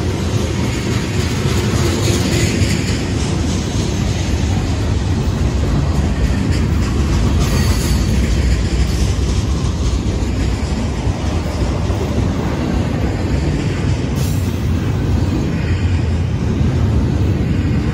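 A freight train's cars rolling past close by: covered hoppers, boxcars and double-stack container cars. Their steel wheels rumble and clatter steadily on the rails.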